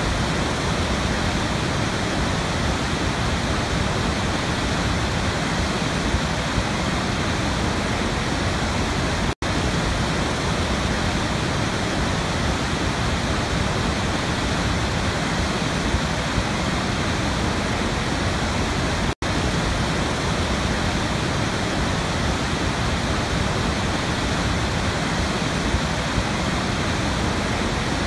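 Large waterfall: a heavy torrent of water crashing into a gorge, heard as a steady, dense rushing noise that cuts out for a split second twice.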